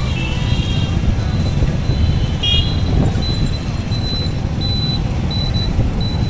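City road traffic heard from a moving two-wheeler: a steady low rumble, with vehicle horns tooting just after the start and again about two and a half seconds in. A short high beep repeats about twice a second through the second half.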